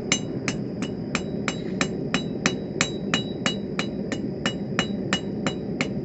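Hand hammer striking hot 1/4 inch mild steel rod on an anvil in a steady rhythm, about three blows a second, each with a short metallic ring. The smith is drawing the rod out to a taper. A steady low rush runs underneath.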